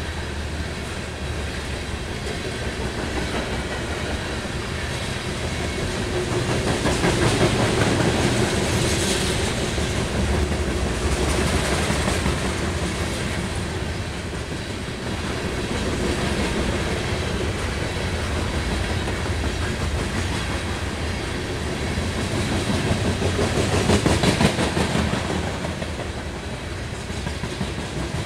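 Sand train of covered hopper cars rolling past: steady rumble of steel wheels on rail with the clickety-clack of wheels over rail joints, swelling louder twice.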